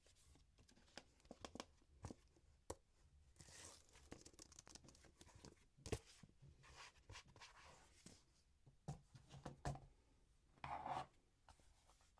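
Faint close-up handling sounds: scattered light taps and clicks, the sharpest about six seconds in, with short papery rustles and swishes in between.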